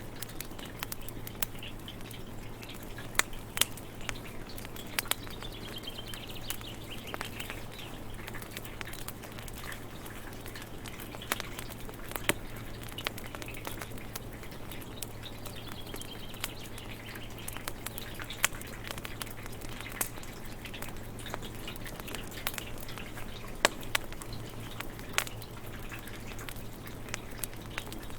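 Wood fire crackling with irregular sharp pops, over a steady hiss of rain, with a bird calling a few times.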